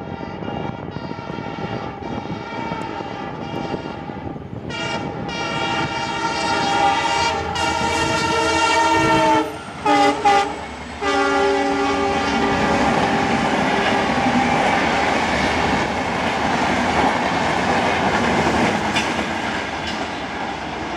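WDP4 diesel locomotive's horn sounding one long blast as the train approaches at speed, then short blasts as it passes, the last blast lower in pitch. After that come the loud clatter and rumble of the coaches' wheels running past on the rails.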